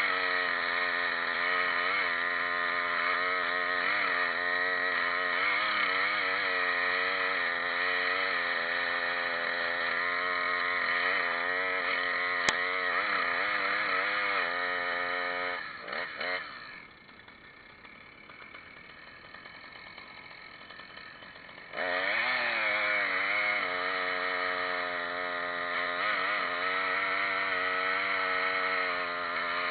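Chainsaw running at high revs, its pitch wavering as it works through wood. About sixteen seconds in it falls away to a low level for some five seconds, then comes back in abruptly at full speed. A single sharp click about twelve seconds in.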